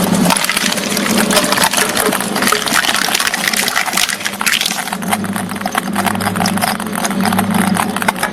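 Crushing machine breaking up material with dense crackling and crunching. A low machine hum drops out early and returns about five seconds in.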